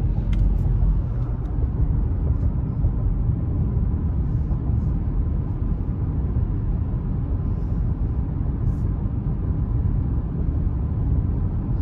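Steady low road rumble and tyre hiss inside the cabin of a 2019 Subaru driving on wet pavement on new snow tires.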